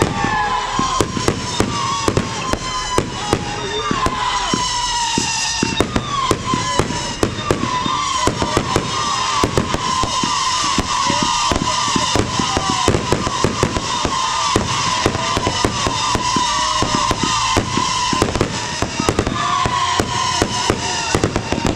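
Fireworks going off in a dense, continuous barrage: rapid crackling pops and bangs, with many short whistles sounding throughout.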